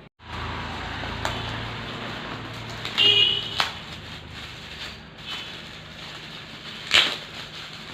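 Gift wrapping rustling and crackling as a present is unwrapped by hand, with a few sharp crackles, the loudest near the end.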